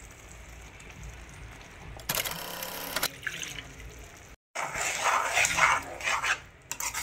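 Metal spoon stirring and scraping thick spinach curry in a metal kadai, clattering against the pan from about four and a half seconds in. Before it, a brief pitched sound about two seconds in, over a faint steady hiss.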